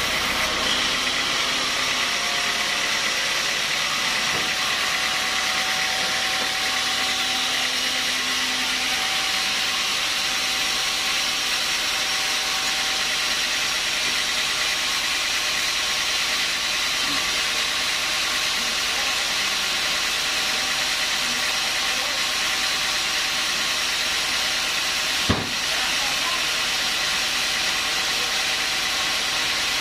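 Homemade band sawmill running steadily, a constant machine drone and hiss, with one sharp knock late on.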